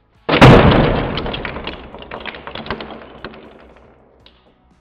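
Large plastic-brick model boat dropped onto a table: one sudden loud crash, followed by a clatter of small plastic pieces breaking off and scattering. The clatter thins out over about four seconds.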